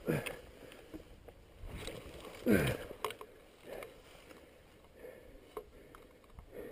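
A man groaning with effort twice, each a short sound falling in pitch, right at the start and about two and a half seconds in, as he handles a dirt bike lying stuck in mud. Scattered light knocks and rustling from the bike and grass.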